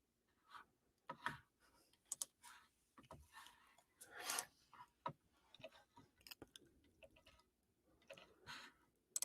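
Near silence, broken by a scatter of faint, short clicks and a few soft rustles.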